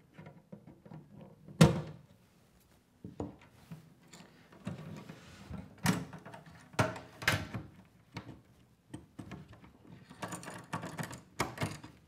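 Several sharp metal clacks and clicks from a stainless-steel latch buckle and its key lock cylinder on a Touratech Zega Pro aluminium pannier being handled and snapped shut. The loudest clack comes about a second and a half in, with a quick run of clicks near the end.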